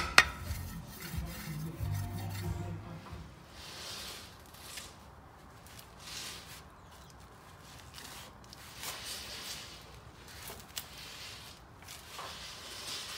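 Handling noise: a few sharp clicks at the very start, then soft rubbing swishes every couple of seconds.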